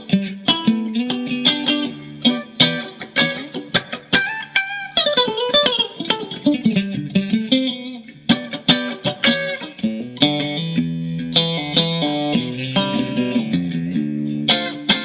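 Mexican-made Fender Stratocaster electric guitar in drop D tuning, freshly set up, played with picked notes and chords. A descending slide comes about five seconds in, and the playing moves to lower, more sustained notes in the second half.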